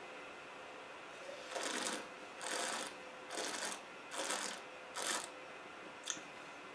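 A wine taster drawing air through a mouthful of red wine to aerate it: five short slurping hisses under a second apart, then a light tick near the end.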